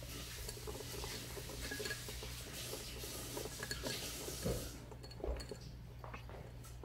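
Small clinks and taps of kittens digging for treats in the clear cups of a cat puzzle feeder. The clatter thins out about five seconds in, apart from a couple of louder knocks.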